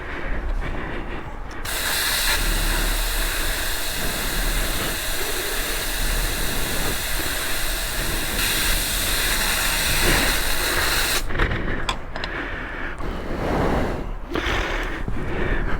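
Compressed air from a forecourt air machine hissing through the hose into a motorcycle tyre. It starts about two seconds in, runs steadily for about nine seconds and cuts off suddenly.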